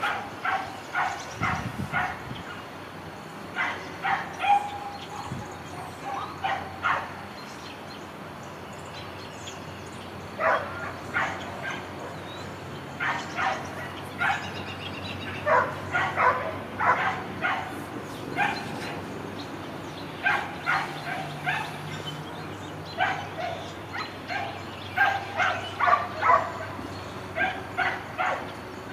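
A dog barking repeatedly, in bouts of several quick barks with short pauses between bouts, over a faint steady background.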